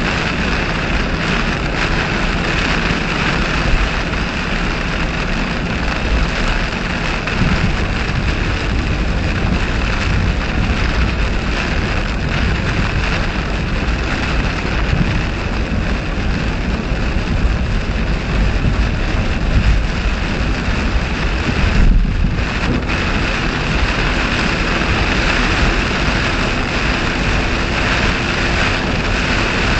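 Heavy rain on a car at highway speed heard inside the cabin: a steady wash of rain and tyre spray over a rumbling, uneven low end of road and wind noise from the thunderstorm's gusts. The sound briefly drops away about three quarters of the way through.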